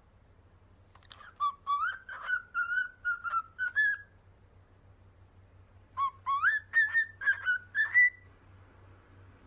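Parrot whistling two short phrases of quick, mostly rising notes, with a pause of about two seconds between them.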